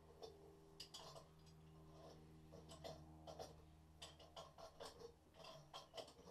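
Faint, irregular metallic clicks and scrapes of a pipe wrench and hands working on a wall-mounted water supply valve fitting, over a steady low hum.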